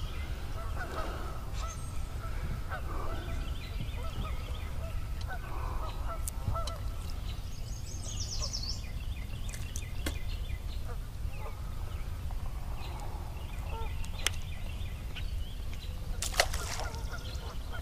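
Faint bird calls in the background over a steady low rumble, with a few sharp clicks.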